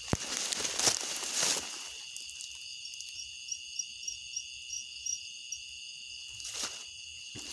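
Insects calling: a steady high trill, with a run of short high chirps about three a second for a couple of seconds mid-way. The first two seconds are rustling and handling noise with a few knocks.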